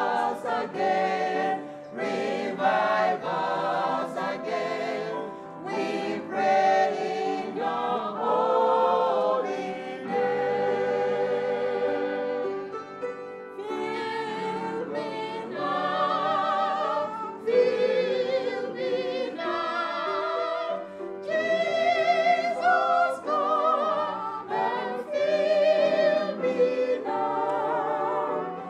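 Small church choir of men's and women's voices singing a hymn together, with vibrato on the long held notes.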